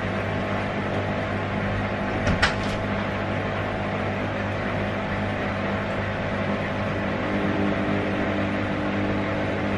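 Steady hum and hiss of a running household appliance, with two short clicks about two and a half seconds in.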